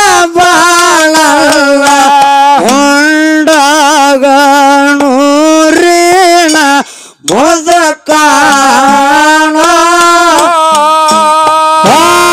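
Amplified solo singing of a Kannada dollina pada folk song, with long held notes that waver and slide, broken by a short pause about seven seconds in. Light hand-cymbal strokes sound underneath.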